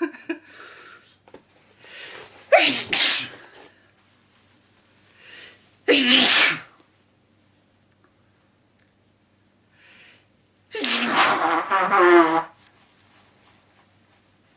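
A person sneezing three times in a row, each sneeze preceded by a short, quick inhale; the third sneeze, near the end, is longer and drawn out with the voice in it.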